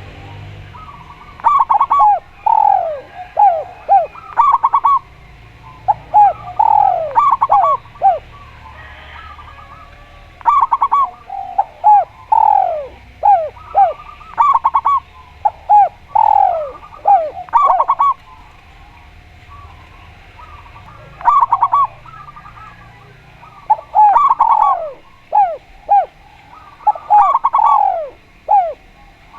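Zebra dove (perkutut) and spotted dove (tekukur) cooing, in repeated phrases of short notes, many of them gliding down in pitch. The phrases come every second or two, with a couple of short pauses.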